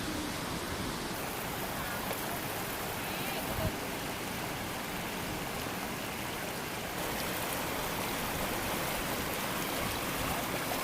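Steady rushing of a waterfall and stream, with one brief knock about three and a half seconds in.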